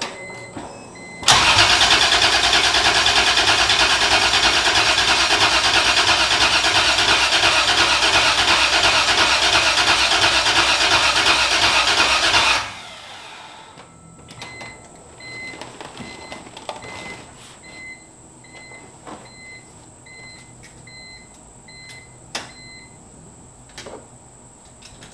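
Toyota 2JZ-GTE inline-six turning over on its starter for about eleven seconds without firing, cranked to push oil through the system while oil pressure still reads zero. It stops suddenly. Afterwards a run of short electronic beeps sounds every second or so among faint clicks.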